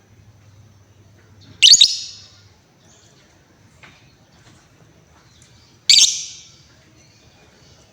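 Female lovebird giving two loud, harsh, shrill calls about four seconds apart, each cut short and fading, with faint small chirps in between.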